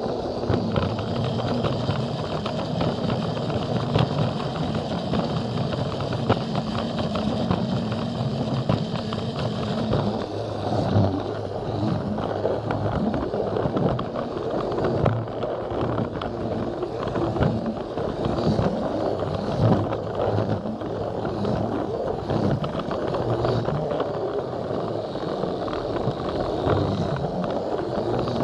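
Plarail battery-powered toy train running along plastic track: a steady whirring of the small motor and gears, with wheels clattering and clicking over the rail joints.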